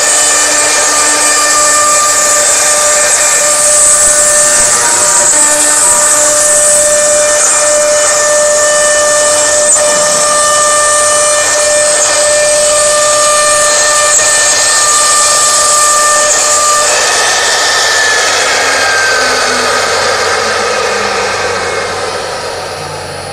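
CNC router spindle whining steadily as the cutter routes grooves into a wood-grain board, with a hiss of cutting over the whine. About two-thirds of the way through the steady whine changes and falls in pitch, and the sound fades near the end.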